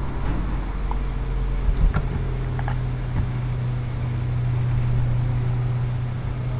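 A few sharp computer keyboard and mouse clicks over a steady low hum.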